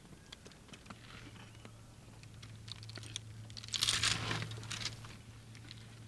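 African elephant's trunk gripping and tearing at an aloe, scattered crackles and snaps of the fleshy, spiny leaves with a louder crunching tear about four seconds in. A low steady hum runs underneath.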